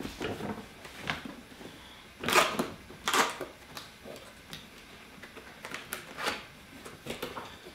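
A cardboard subwoofer box being handled and opened on a table: scattered taps and rustles of cardboard, with two louder rasping scrapes about two and three seconds in.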